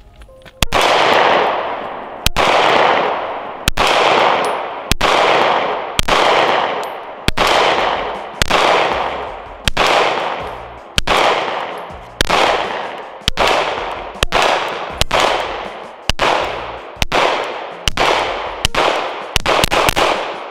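A 9mm SIG Sauer M17 (P320) pistol fired in a steady string of single shots, about one a second, each followed by a long echoing decay, with the shots coming faster near the end.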